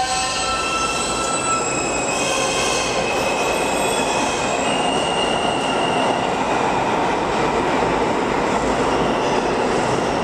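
New York City subway R160A train running through the station, several high steady squealing tones from the wheels over the first few seconds, then a steady noise of wheels on rails.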